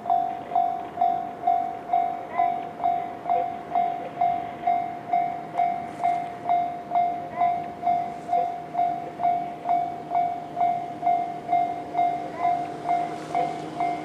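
Japanese railway level-crossing warning alarm in the JR standard electronic tone, ringing steadily about twice a second, each stroke a struck-bell ping that fades; it sounds while the crossing is closed for an approaching train.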